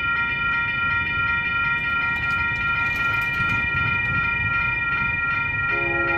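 Grade-crossing warning bell ringing rapidly, about four strikes a second, as the crossing lights flash and the gate arm lowers for an approaching train. Near the end, an approaching locomotive's multi-tone horn begins to sound.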